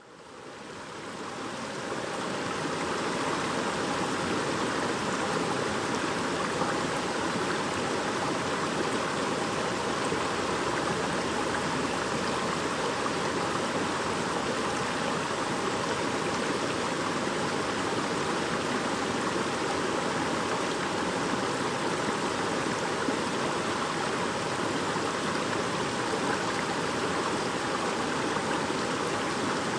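A babbling brook: shallow stream water running in a steady, even rush that fades in over the first two seconds.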